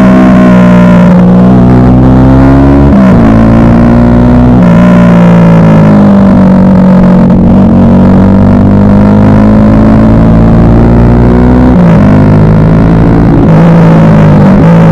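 Bajaj Pulsar RS200's single-cylinder engine running loud through an aftermarket Akrapovic exhaust while riding. The engine pitch holds fairly steady, stepping up and down around three seconds in and again near twelve seconds before climbing.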